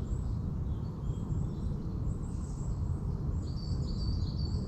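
Woodland birds singing: scattered short high chirps, with a quick run of repeated notes near the end, over a steady low rumbling noise.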